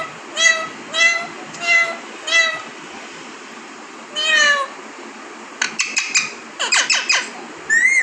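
Alexandrine parakeet imitating a cat's mew: five short mews in quick succession, then one longer mew about four seconds in, followed near the end by a fast run of sharp squeaky chirps.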